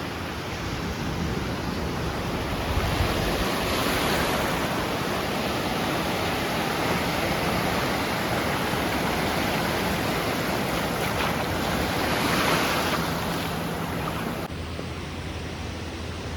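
Ocean surf washing in and out on the shore, with wind on the microphone; the wash swells twice, once about four seconds in and again near the end.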